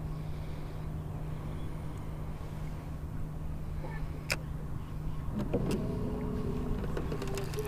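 Electric bow-mount trolling motor running with a steady low hum. A sharp click comes about four seconds in, and a higher whine joins over the last two seconds.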